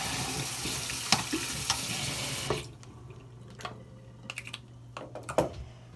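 Bathroom sink tap running, water splashing into the basin, then shut off abruptly about two and a half seconds in; a few light clicks and knocks follow.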